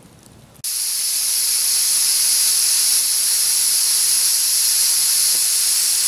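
Afghan kazan pressure cooker venting steam through its valve on the campfire: a loud, steady high hiss that cuts in abruptly about half a second in.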